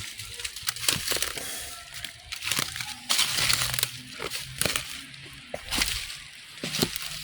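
Footsteps crunching and rustling over rough ground, with many irregular snaps and crackles.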